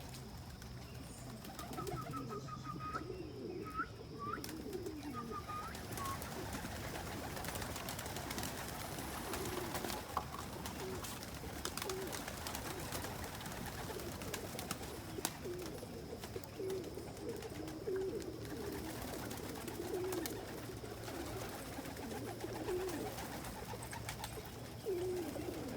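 A flock of domestic pigeons cooing continually, with scattered light clicks and a short run of higher chirps in the first few seconds.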